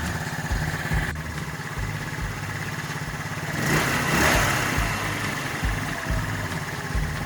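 Roketa 150cc GY6 scooter's single-cylinder four-stroke engine idling steadily on fresh oil. About four seconds in, a rushing noise swells up and fades over it.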